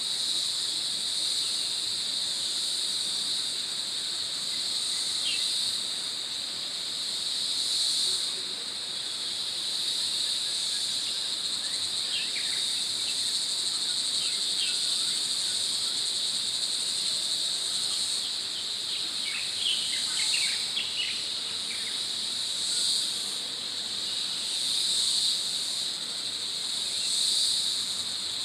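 Insect chorus in a forest: a steady, high-pitched drone that swells and fades every couple of seconds near the end. A few short, falling bird chirps come through in the middle.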